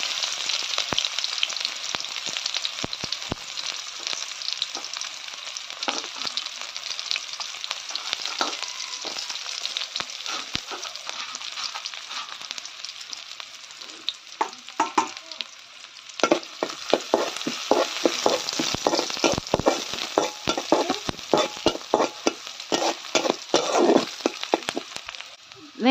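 Chopped onions sizzling in hot oil with mustard seeds in a metal kadai. Scattered sharp clicks and scrapes become much more frequent about two-thirds of the way through, as a metal spatula stirs the onions against the pan.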